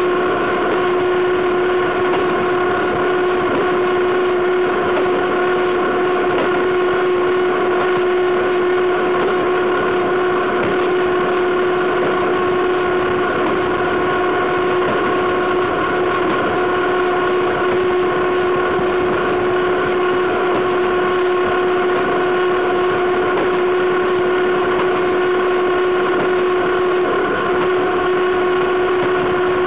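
Running gear of a BDZ class 43 electric locomotive heard close up at the wheels as it hauls a freight train: a steady rush of wheels on rail, with a constant whine held at one pitch.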